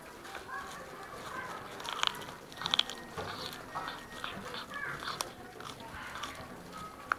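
Cat chewing and cracking raw chicken feet: an irregular run of sharp crunches and clicks, the loudest about two and three seconds in.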